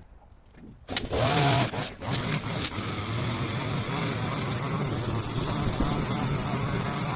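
Small petrol engine of a garden strimmer starting about a second in, briefly loudest, then running steadily.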